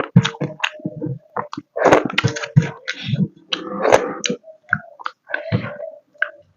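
Close-miked chewing and mouth smacking while eating a mouthful of food: a quick, irregular run of short smacks and clicks.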